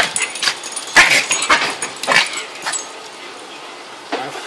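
An angry chihuahua giving short, sharp barks, about five in the first three seconds, then quieter until one more near the end.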